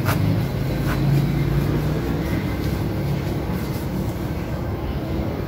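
A steady low rumble like a running engine, with two brief scuffs in the first second.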